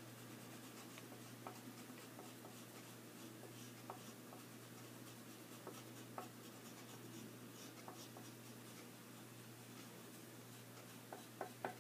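Faint, soft scratching of a green crayon shading lightly across paper, with a few small ticks as it catches the paper.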